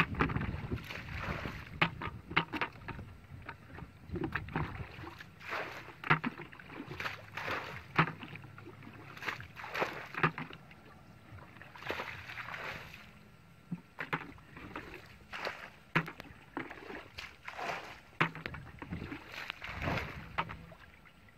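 Irregular splashing and sloshing in shallow muddy water, with sharp slaps and clicks that come and go in clusters.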